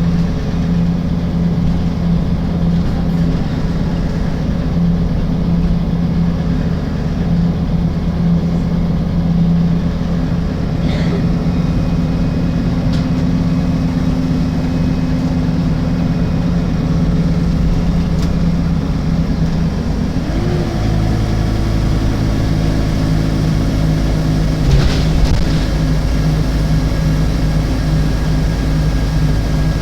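Alexander Dennis Enviro 300 bus on a MAN chassis running, its diesel engine giving a steady hum with a few faint clicks over it. The engine note changes about two-thirds of the way through.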